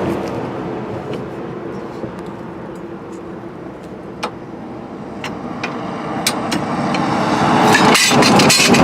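Road vehicle running, its noise fading a little and then swelling toward the end as it comes closer, with a few sharp metallic clicks.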